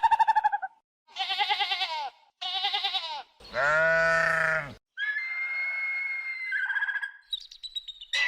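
Goat bleating: two short, quavering bleats, then a longer, deeper bleat. Higher, steady calls from another animal follow over the last few seconds.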